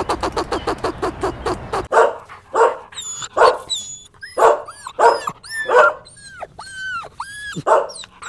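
Rapid ticking, about seven clicks a second, for the first two seconds. Then a dog barks in short bursts, mixed with high, arching whines and yelps.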